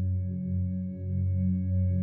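Ambient background music: low sustained drones that swell and dip under steady held higher tones.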